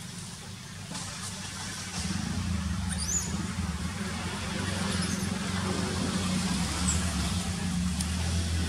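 Low, steady motor vehicle engine rumble that grows louder about two seconds in and holds, with a few short high chirps over it.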